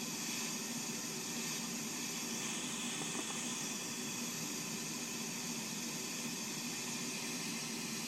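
Steady hiss of air flowing through a premature baby's breathing-support circuit.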